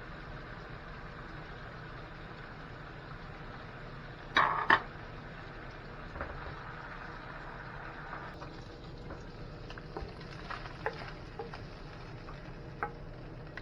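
Steady background hum and hiss, broken by two sharp knocks in quick succession about four seconds in, then a scattering of light clicks and taps.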